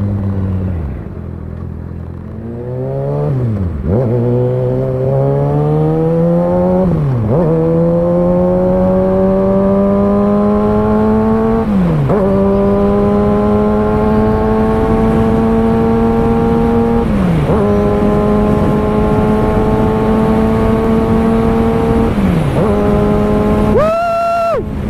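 2019 Kawasaki ZX-6R's inline-four engine under way: the revs fall off at first, then the bike pulls through the gears, its pitch climbing steadily after each of five upshifts, with a quick drop in pitch at every shift.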